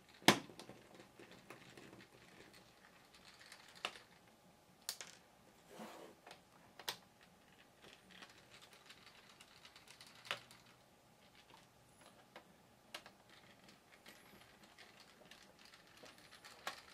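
Irregular light clicks, taps and faint scraping from a small screwdriver working screws out of the plastic underside of a Lenovo ThinkPad T410s laptop. The sharpest click comes right at the start.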